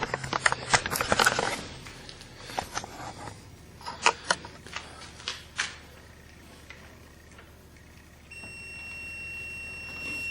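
Clicking and rattling of handling, with scattered sharp clicks, then a steady high-pitched electronic tone starting about eight seconds in from a driveway alert beeper.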